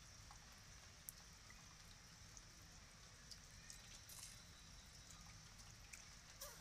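Faint, steady rain falling on a wet concrete floor and puddles, with a few scattered drip-like taps.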